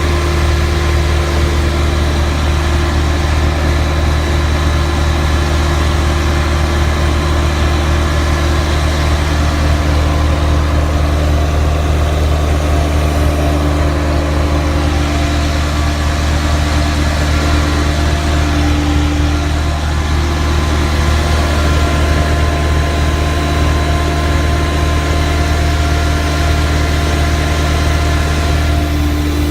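Prochem Everest HP truckmount carpet-cleaning machine running steadily, a constant low engine hum with steady whining tones above it.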